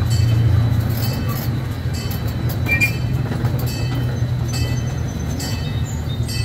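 Amusement park train running steadily along its track: a low engine drone under the open-sided cars, with scattered light clicks and rattles.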